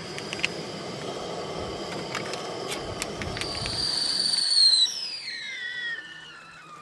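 Stainless whistling kettle on a portable gas burner whistling at the boil over the burner's steady hiss, growing louder. After about five seconds the burner is turned off: the hiss stops and the whistle glides down in pitch and fades. A few sharp clicks come in the first three seconds.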